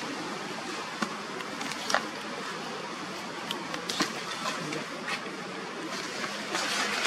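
Steady outdoor background hiss with a few sharp clicks, the loudest about one and two seconds in.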